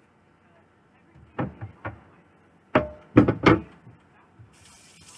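Handling of utensils and a cutting board at a kitchen sink: a few sharp knocks and clatters, the loudest four close together in the middle. Tap water then starts running into the sink near the end.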